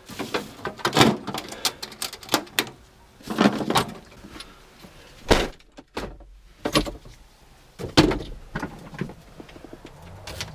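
A string of clanks and knocks from hand tools and the lid of a metal toolbox being handled, then, after a brief gap, clunks of handling inside a car's cabin, the heaviest a low thump about eight seconds in.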